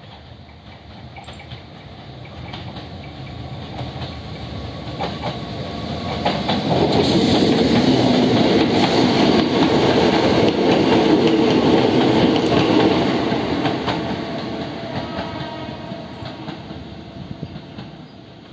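Hakone Tozan Railway 1000-series "Bernina" electric train approaching, passing close by and running away, its wheels clicking over the rail joints. The sound builds steadily, is loudest from about seven to thirteen seconds in, then fades.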